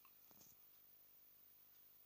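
Near silence: faint hiss, with one soft knock about half a second in.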